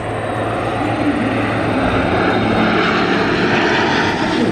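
An A-10C Thunderbolt II's twin turbofan engines and a propeller warbird's engine flying past together in formation. The roar builds as they come overhead, and near the end the pitch starts to drop as they pass.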